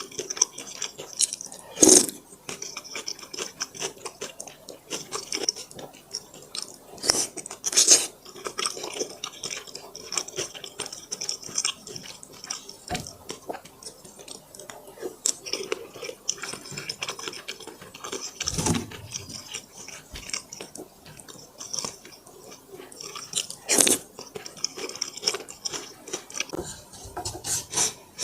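Close-miked eating sounds: chewing and biting into dumplings, a steady stream of small wet mouth clicks, with a few louder sharp bites scattered through.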